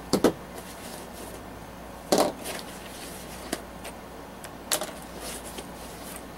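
Hands opening and rummaging in a fabric gear pouch: several short clicks and rustles, with a longer scraping rasp about two seconds in.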